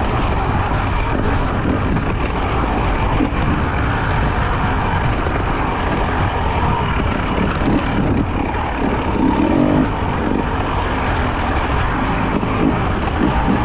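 Two-stroke enduro motorcycle engine heard from its onboard camera, revving up and down as the throttle is worked on a rough downhill dirt trail, the pitch rising and falling most plainly a little past halfway.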